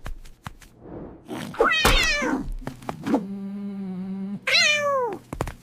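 Cartoon cat cries: two loud meow-like cries falling in pitch, with a steady held cry between them and a few sharp knocks.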